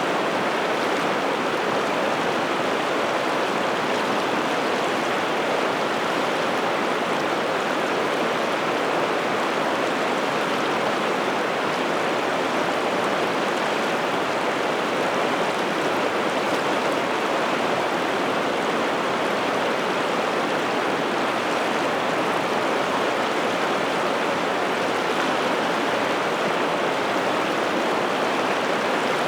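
Steady rushing of a large river's flowing water, even and unbroken.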